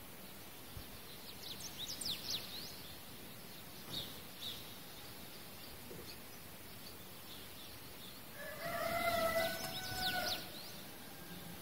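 Small birds chirping over a steady background hiss, with a rooster crowing in a drawn-out call near the end.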